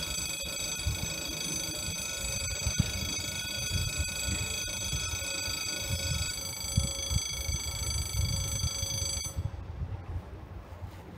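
French level-crossing warning ringer sounding a steady electronic ringing tone while the barriers lower, cutting off suddenly about nine seconds in as the barriers come fully down. Wind rumbles on the microphone underneath.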